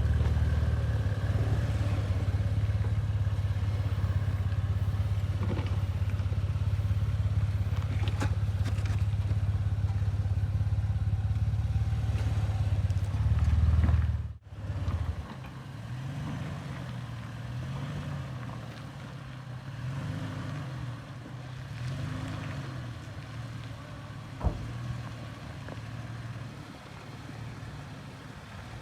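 Off-road 4x4 engine running steadily at low revs for the first half, then after an abrupt break a quieter engine revving up and down about four times, with a single sharp knock near the end.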